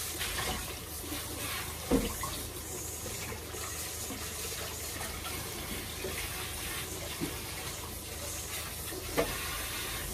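Kitchen tap running steadily into the sink, with two short knocks, one about two seconds in and one near the end.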